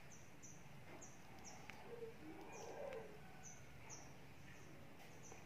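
A small bird chirping faintly: a string of short, high, falling chirps, some in quick pairs, repeating irregularly against a quiet background.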